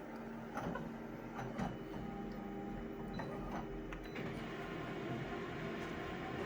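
Photocopier running a copy: a steady motor hum with several mechanical clicks, turning into a broader steady whir about four seconds in.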